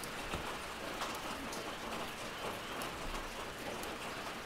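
Steady background hiss with many faint, scattered ticks throughout, like light rain.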